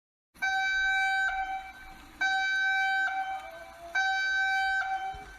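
Emergency alert tone sounding three times: a steady, high electronic beep about a second long, each followed by a fainter, slightly lower tone, repeating about every two seconds.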